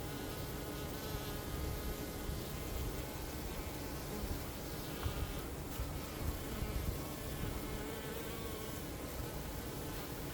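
Honeybees buzzing, many wings humming together in a steady drone, with a few individual bees passing closer and louder about halfway through.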